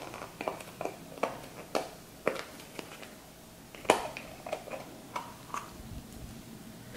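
Clear slime with foam beads being squished and kneaded by hand, giving irregular crunchy clicks and pops, the loudest about four seconds in.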